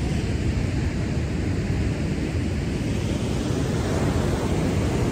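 Ocean surf breaking and washing over rocks: a steady rushing noise with a heavy low rumble.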